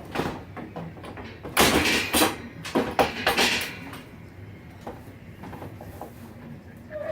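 Hospital-bed frame parts being handled and hooked together: a burst of scraping and knocking from about one and a half to four seconds in, then a few lighter knocks.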